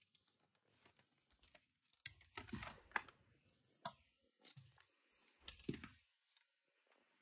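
Faint handling noises: soft rustles and a few clicks as plush toys are moved and set down on a plastic toy arena, with near silence between them.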